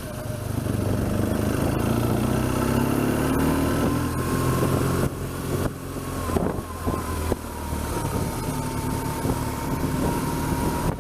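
BMW R1200GS boxer-twin motorcycle engine running while riding at low speed through town streets. Its note rises over the first few seconds, drops and breaks up around the middle, then runs steadily again.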